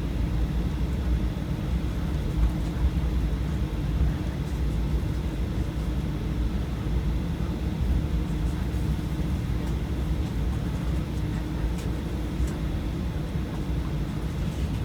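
Steady low rumble of aircraft engines and airflow heard from inside the cabin, unchanging throughout.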